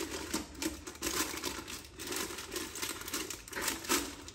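Baking paper rustling and crinkling as it is pressed into a multicooker's pot around a wire rack, in a run of irregular crackles.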